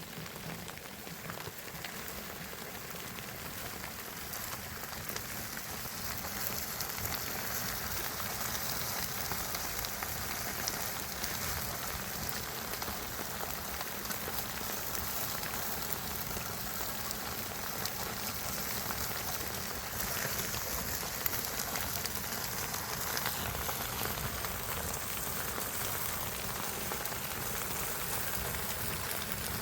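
Steady rain falling, a dense patter of drops on surfaces, growing slightly louder over the first few seconds and then holding even.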